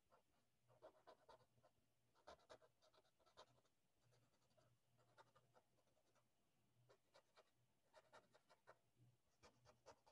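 Near silence: faint, short, scattered strokes of a drawing tool rubbing on a paper tile, over a low steady hum.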